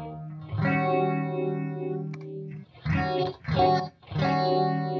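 Electric guitar played through a Stewmac Lightcycle Phasor II, a Mu-Tron Phasor clone, into a Mesa Boogie Badlander amp, with the phaser sweeping the tone. A chord rings from about half a second in, a few short chords follow near the three-second mark, and another chord rings out from about four seconds in.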